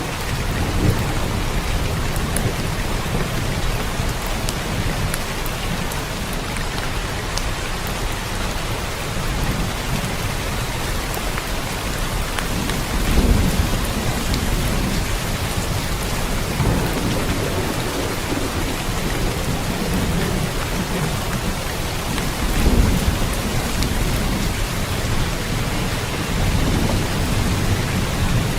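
Steady heavy rain falling on a surface, with low rolls of thunder rumbling underneath and swelling several times, loudest about halfway through and again a little after.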